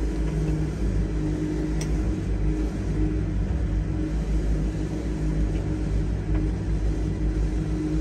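Wood-Mizer LT70 sawmill's engine running steadily at an even speed, a low rumble with a steady hum.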